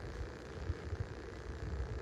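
Wind buffeting the microphone, an irregular low rumble that comes and goes over a steady hiss.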